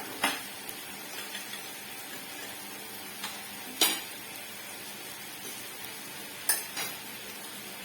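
Meat sizzling steadily on a samgyupsal grill, with four sharp clinks of utensils, two of them close together near the end.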